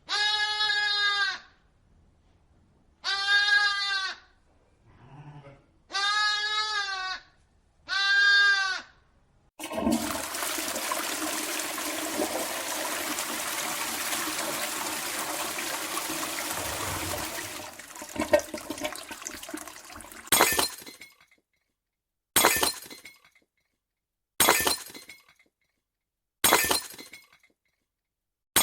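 A string of separate sound clips. First an animal bleats four times, each call about a second long and wavering, with a fainter call among them. Then comes a steady rushing noise for about eight seconds, and after it four sharp crashes with short ringing tails, about two seconds apart.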